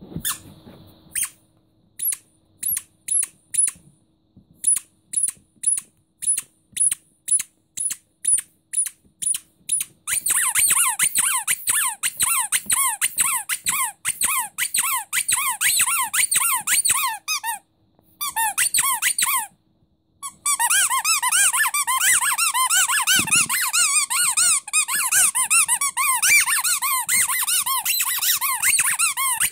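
Rubber starfish squeaky toy squeezed by hand. At first it gives single short, high squeaks about twice a second. After some seconds the squeezing turns quick, into near-continuous squeaking that stops briefly twice and then carries on.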